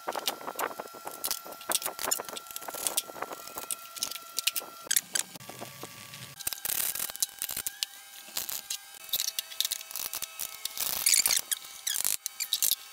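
Irregular knocks, clanks and scrapes from a sliding compound mitre saw being taken apart by hand, as its metal and cast parts are lifted, wiped and set down.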